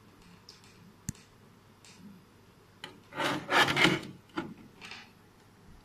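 A plastic router casing being handled and turned over on a desk. A sharp click comes about a second in, then a loud scraping rub lasting about a second around three seconds in, and two lighter rubs after it.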